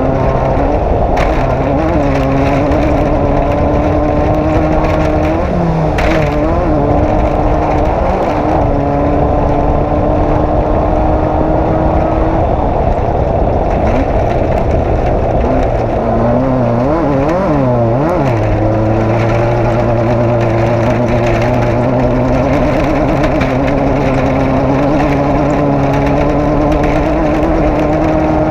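Off-road race vehicle's engine running hard and steady, its pitch wobbling quickly up and down about two-thirds of the way through, then settling lower. A couple of sharp knocks are heard about a second in and around six seconds in.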